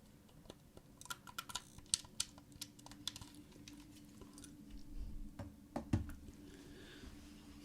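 Quick, irregular light clicks and taps close to the microphone, thickest in the first few seconds, with a soft low thud about six seconds in.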